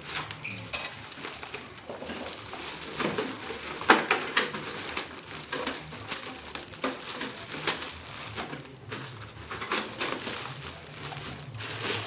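A clear plastic bag crinkling and rustling as it is pulled off an RC truck, with sharp crackles and clacks throughout; the loudest comes about four seconds in.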